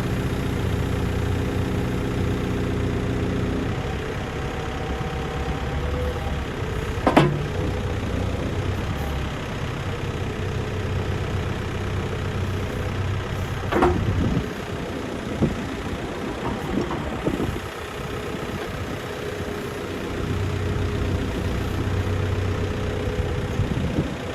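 Volvo BL71 backhoe loader's diesel engine running, its note dropping about four seconds in and picking up again near the end. Two sharp knocks stand out, about seven and fourteen seconds in.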